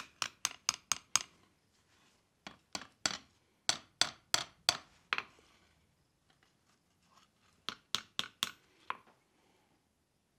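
Blacksmith's hand hammer striking a red-hot iron ladle handle on the anvil, in three quick runs of sharp, ringing blows (about six, then eight, then five) with short pauses between, as the handle is bent into a gentle curve.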